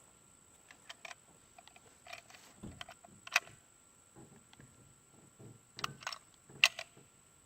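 Handling noise: scattered light clicks and knocks, the two loudest about three and a half and six and a half seconds in.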